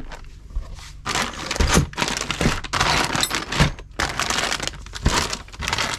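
Clear plastic parts bags crinkling and rustling irregularly as they are handled and shifted on a mat, with a few dull thumps as bagged parts are set down.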